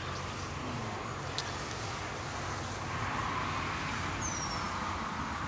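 Steady distant road traffic noise, swelling a little about halfway through, with a sharp click a little over a second in and a short falling chirp near the end.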